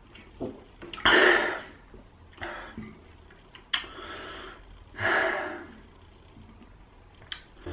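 A man gasping and breathing hard, out of breath after chugging a glass of Pepsi mixed with milk: a few heavy breaths, the first, about a second in, the loudest.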